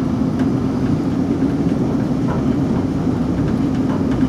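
On-board sound of a Class 458 electric multiple unit on the move: a steady rumble of the wheels on the track with a constant low hum.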